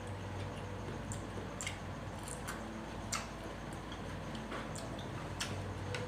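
Close-up chewing of boiled vegetables: irregular wet mouth clicks and crunches, over a low steady hum.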